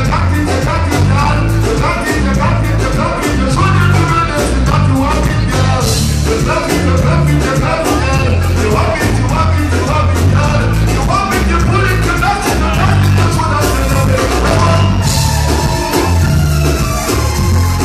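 Live reggae/dancehall band playing: a heavy bass line with drums and keyboards under a male lead vocal and female backing vocals.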